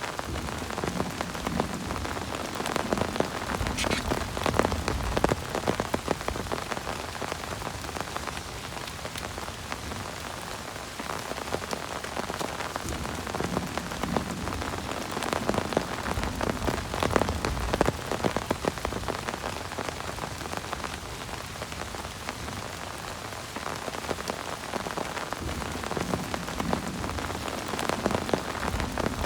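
Heavy rain falling, drops pattering and ticking on a surface close by, growing heavier and easing off in waves.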